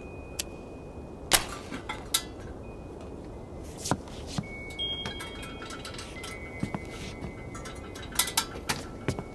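Designed sci-fi sound effects: scattered sharp clicks and chime-like clinks, with thin high steady tones that start and stop, over a constant hiss.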